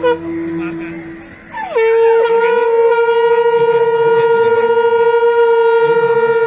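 Conch shells (shankha) blown in a Hindu aarti. One blast ends at the very start and a quieter, lower conch note carries on. A little under two seconds in, a loud conch note sets in, drops quickly into pitch, then is held steady with a fast pulsing in loudness.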